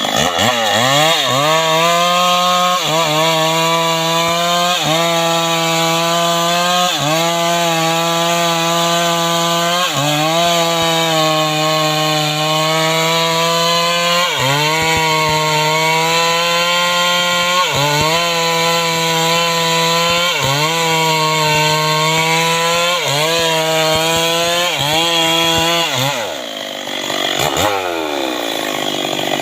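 Stihl MS 381 two-stroke chainsaw running at high revs cutting mahogany, its pitch dipping briefly and recovering about every two seconds as it loads in the wood. Near the end it drops toward idle, then revs up again.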